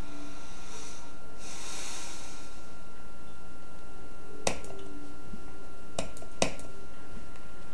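Computer mouse clicks: one about four and a half seconds in, then two close together near six seconds, over a steady hiss and faint hum. A soft, high rushing sound comes about a second in and lasts about two seconds.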